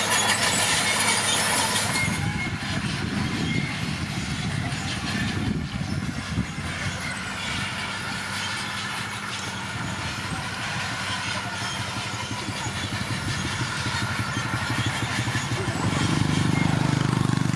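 Komatsu D41P bulldozer's diesel engine running under load, with a rough mechanical clatter over it. The engine note changes about two seconds in, and the low drone swells near the end.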